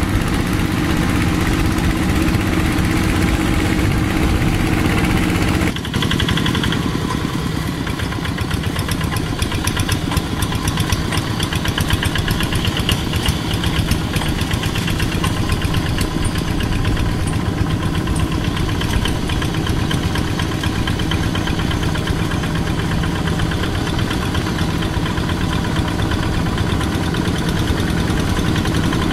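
Two-wheel hand tractor's single-cylinder diesel engine running steadily under load as it drives its cage wheels through flooded paddy mud. About six seconds in, the sound changes abruptly to a closer, faster-chattering engine beat.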